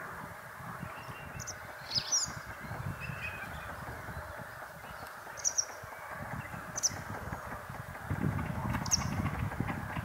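White wagtail calls: about six short, sharp, high notes spaced irregularly, over a steady rushing background noise that thickens with a low rumble near the end.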